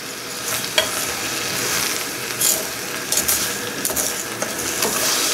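Wooden spoon stirring and scraping drained adzuki beans and sugar in a metal saucepan over a gas flame, with scattered scrapes and knocks over a steady hiss. The sugar is beginning to dissolve in the water left on the beans.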